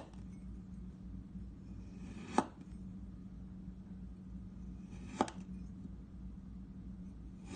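Kitchen knife slicing through a packed dome of kinetic sand: two cuts about three seconds apart, each a short crunch ending in a sharp tap of the blade.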